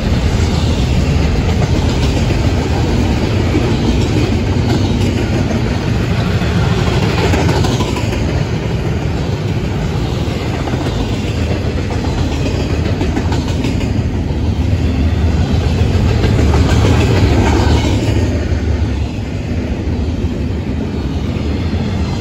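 Double-stack intermodal well cars of a freight train rolling past at speed: a steady, loud rumble of steel wheels on the rail.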